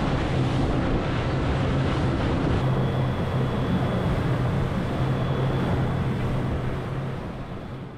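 Yamaha 90 hp outboard motor running at speed on a small open boat: a steady drone with a constant low hum, mixed with rushing water and wind on the microphone. It fades out near the end.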